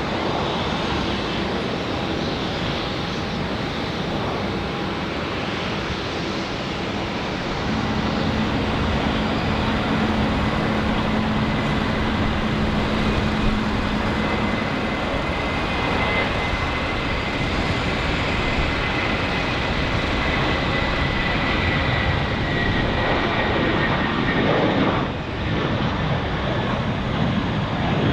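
Jet airliner's engines running loud and steady, with a high whine that slowly falls in pitch in the second half.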